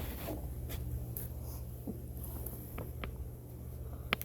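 Faint scratchy rustling of packaging being handled, with a few small clicks in the last second and a half, the sharpest one just before the end, over a steady low hum.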